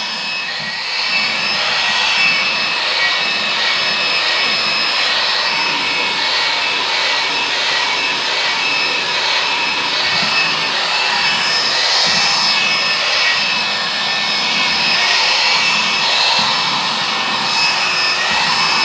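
Vacuum cleaner running steadily while its nozzle is passed over a cat's fur: a rush of suction air with a steady high whistle, swelling slightly as the nozzle moves.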